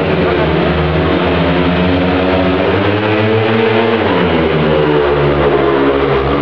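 Speedway bikes' single-cylinder methanol engines revving at the starting gate, then accelerating hard away from the start with a rising engine note about four seconds in.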